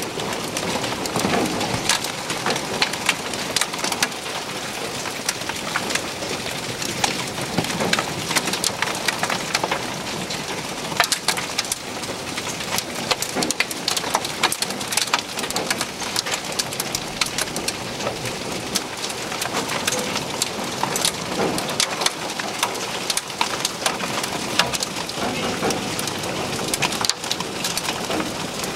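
Hail and heavy rain falling on a parked car and the ground. A steady rain hiss carries a dense scatter of sharp ticks from hailstones striking the car's roof.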